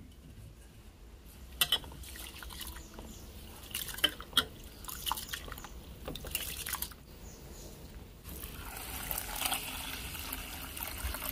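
Hand swishing and rubbing broken wheat in water in a stainless steel pot, with scattered splashes and small clicks, as the grain is washed. About eight seconds in, a steady stream of water starts pouring into the pot.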